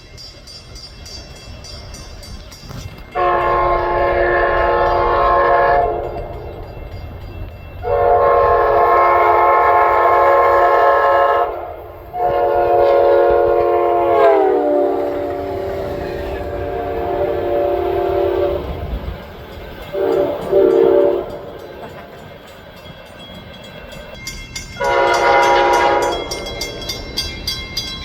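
Train's multi-tone air horn sounding a series of long blasts with a short one between, over the low rumble of the passing train. The horn's pitch drops partway through one long blast as the locomotive goes by.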